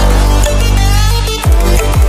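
Background electronic music with a deep, sustained bass and a falling bass hit about one and a half seconds in.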